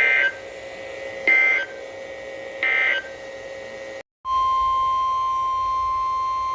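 Three short warbling bursts of Emergency Alert System SAME data tones, about a second and a half apart: the digital end-of-message code closing a NOAA Weather Radio alert. After a short silent gap, the steady 1050 Hz NOAA Weather Radio warning alarm tone starts and holds one unbroken pitch.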